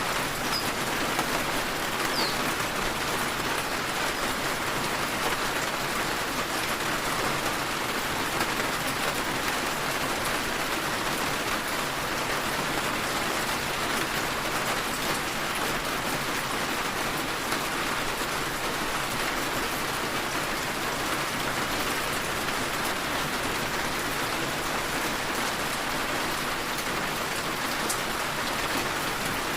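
Steady rain falling, an even hiss of many drops on surfaces that holds level throughout.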